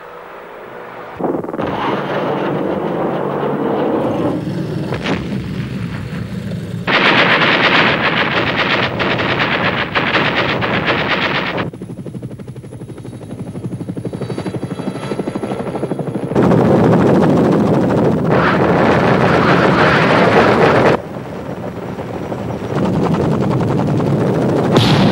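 Military helicopters' rotors making a rapid, steady chop, in several clips that start and stop abruptly as the footage changes.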